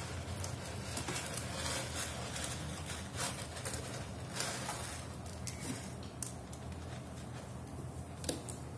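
Kitten scratching and digging in pellet cat litter: the pellets rustle and click in irregular bursts, thinning out after about halfway, over a steady low hum.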